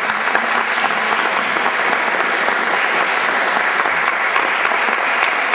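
Audience applause: many hands clapping in a dense, steady patter.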